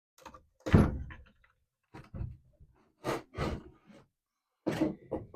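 A series of separate knocks and clunks from parts of a deer feeder being handled, the loudest about a second in and a double knock around three seconds.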